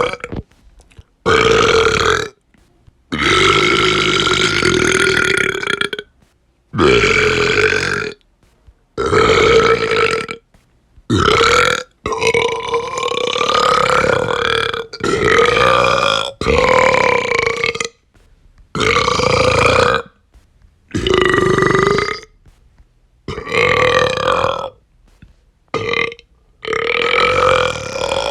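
A person belching over and over: a string of about fifteen separate long, drawn-out burps, each one to three seconds long at a fairly steady pitch, with brief silent gaps between them where each is cut off abruptly.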